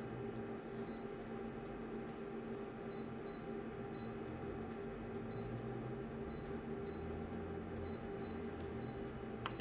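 Steady electrical hum from a running device, with faint short high-pitched beeps at irregular intervals and a couple of faint clicks near the end.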